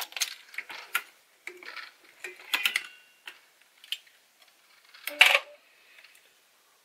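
Metal clicks and clacks of a progressive reloading press being worked by hand as a bullet is seated and roll-crimped into a cartridge case, with a louder clack a little after five seconds in.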